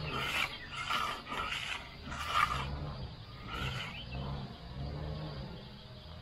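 Rasping strokes of a hand pad rubbed across the face of a freshly stripped concrete wall, roughly one or two a second for the first few seconds. A low hum comes and goes underneath.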